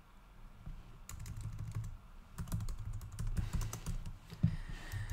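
Typing on a computer keyboard: a run of quick key clicks starting about a second in.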